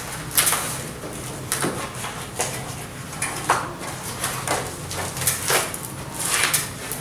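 Scattered clicks, knocks and rattles of hands and tools working on the plastic and metal parts of a split air conditioner's indoor unit while its wiring is disconnected.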